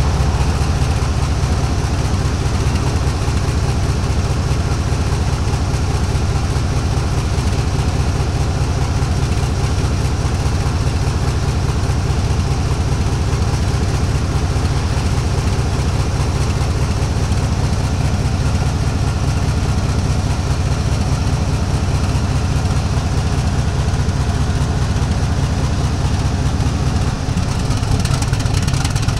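Diesel-electric freight locomotive's engine running steadily close by, a deep low drone. Near the end the engine note changes.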